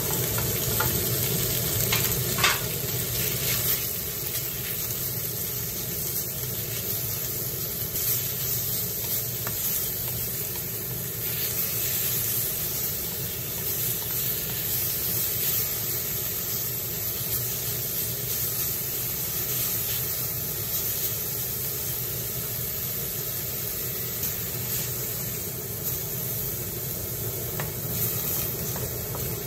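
Sliced pork sizzling in a hot wok while being stirred and pushed around with a wooden spatula, with scraping against the pan. A sharp knock comes about two and a half seconds in.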